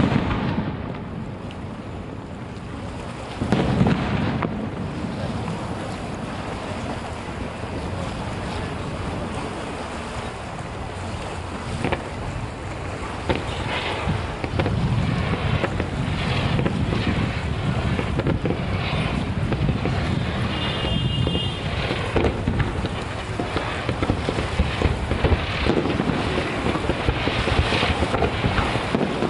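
Fireworks display heard from a distance: heavy booms of aerial shells bursting at the start and again about four seconds in, then a continuous low rumble of detonations with dense crackling from smaller effects through the second half.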